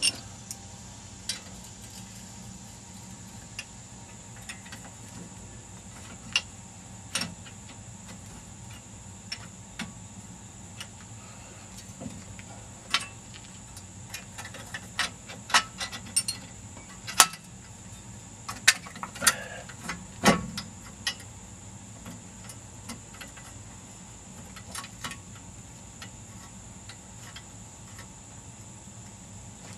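Scattered metal clicks and clinks of hand tools and bolts while a front hub assembly is being bolted up, most of them in the middle stretch.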